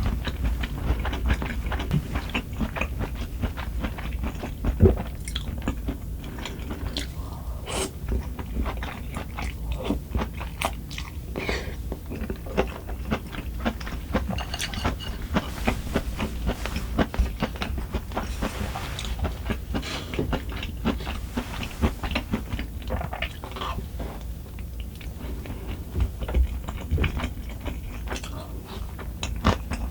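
A person chewing and biting food close to the microphone, an uneven run of small mouth clicks with a louder one about five seconds in.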